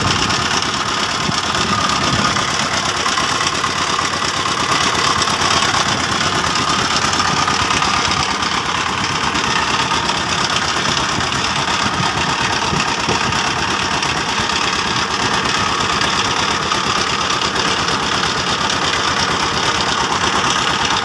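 Large engine running steadily at a constant speed, with a faint steady whine on top.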